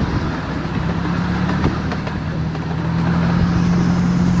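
Ride-on miniature railway train running along the track: a steady low engine hum over a rumble of wheels on the rails, growing a little louder about three seconds in.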